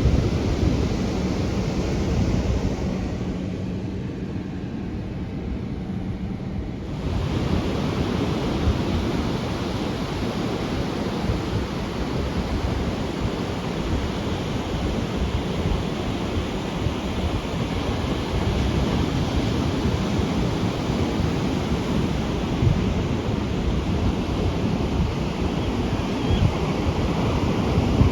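Ocean surf breaking and washing in, with wind buffeting the microphone. The sound gets a little fuller about a quarter of the way in.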